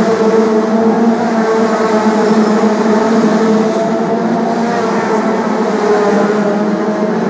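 A pack of BriSCA F2 stock cars racing, several engines running hard at once in a loud, steady drone with overlapping engine notes that waver slightly.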